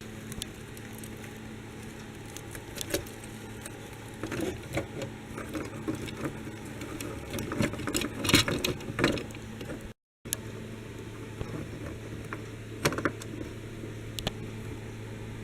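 Light clicking and rattling of small diecast toy vehicles being handled, busiest in the middle with a few sharp clicks near the end, over a steady low hum.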